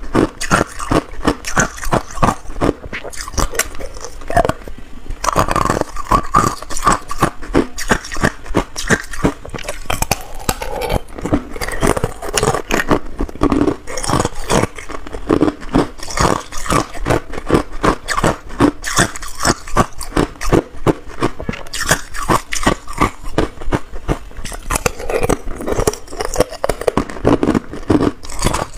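Hard clear ice cubes being bitten and crunched close to a lapel microphone: a steady stream of sharp cracks and crunches.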